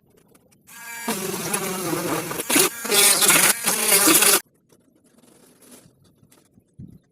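12 V DC mini drill motor, driving a homemade suction fan, running with a high buzzing whine. It starts under a second in, grows louder partway through and cuts off suddenly a little past the middle.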